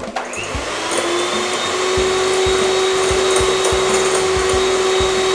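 Electric hand mixer switched on, its motor whine rising over the first second or so and then holding steady as the twin beaters whisk egg yolks in a glass bowl, with occasional low knocks.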